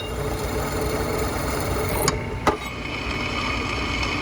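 Electric power tool motor starting up and running steadily with a low hum and a steady whine, with two sharp clicks about two seconds in.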